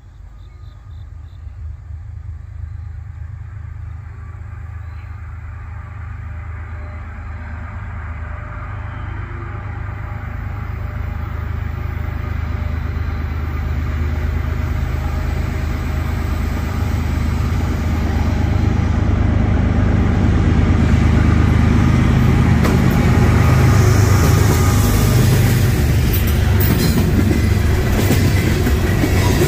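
Norfolk Southern freight train approaching: the diesel locomotives' low engine rumble grows steadily louder, and wheel-on-rail noise comes in over the last few seconds as the train draws near.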